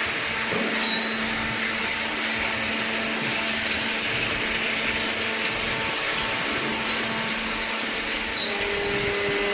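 Industrial cardboard baler running, a steady mechanical hum under a broad hiss.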